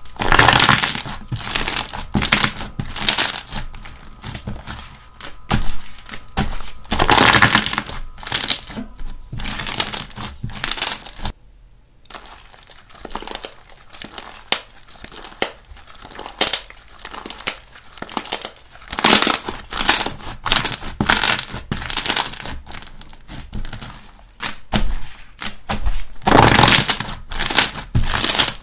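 Slime being pressed and squeezed by hand, making dense crackling and crunching sounds, with a short break about twelve seconds in.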